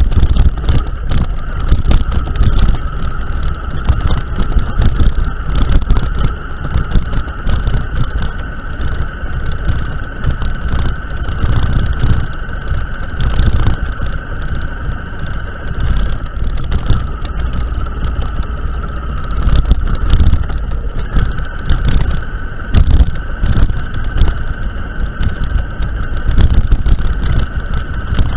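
A vehicle driving over a broken-up, potholed mountain-pass road under repair: a steady low rumble with constant knocks and rattles, and a steady whine that steps up slightly about two-thirds of the way through.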